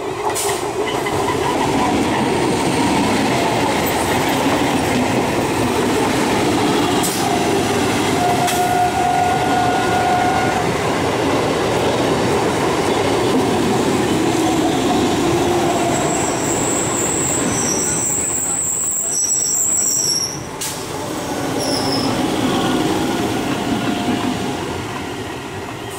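Electric multiple unit (EMU) local train passing close at speed: a loud, steady rumble of steel wheels running on the rails, with a few sharp knocks and brief high-pitched squeals from the wheels in the middle. The noise begins to fade near the end as the coaches run on past.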